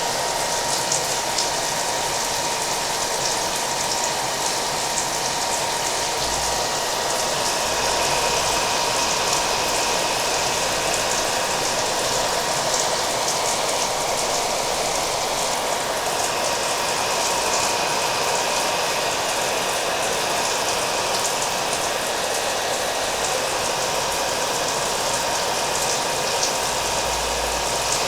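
Hair dryer running steadily, with a constant motor whine, mixed with steady rain.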